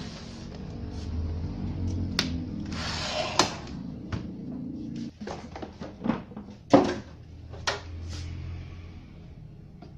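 Knocks, scrapes and clatter of hard plastic and a circuit-board chassis being handled as a CRT TV's plastic back cover is fitted over its chassis, several sharp knocks with the loudest about two-thirds of the way through, over a low steady hum.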